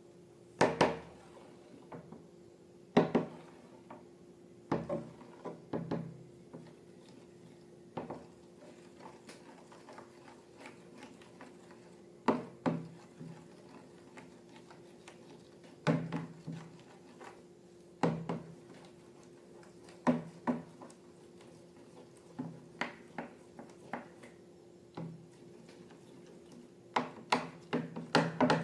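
Irregular light taps, knocks and clicks of small objects being handled and set down on a hard surface, some in quick pairs or clusters, over a faint steady hum.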